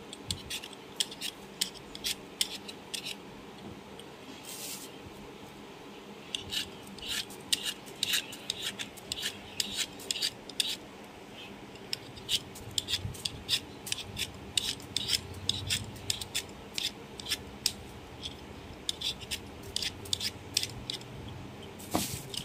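Knife peeling the hard rind off a wedge of kalabasa squash: short, sharp scraping strokes, irregular at a few a second, as the blade shaves the skin away.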